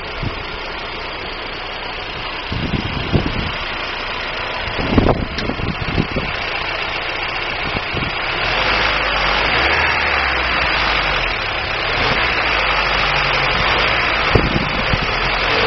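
1999 Daewoo Nubira's 2.0L DOHC four-cylinder engine running at idle, with a few short knocks in the first half and a louder, steadier engine note from about halfway. The engine is being checked for a misfire, which the owner suspects comes from weak spark from the DIS ignition coil.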